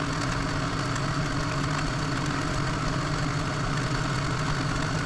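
1929 South Bend lathe running at a steady speed, its motor and drive giving an even hum.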